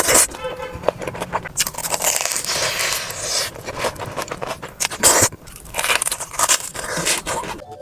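Someone biting into and chewing a crispy fried mozzarella corn dog: crackly crunching throughout, with sharp crunches at the start and again about five seconds in.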